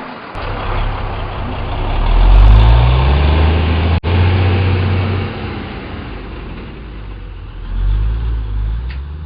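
Semi truck engine revving and pulling away, its low drone climbing in pitch and peaking about two to three seconds in. The sound breaks off sharply for an instant about four seconds in, then swells again near the end.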